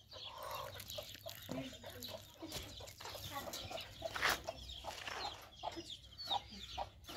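Domestic hens clucking in short, irregular calls, with one sharp, louder sound about four seconds in.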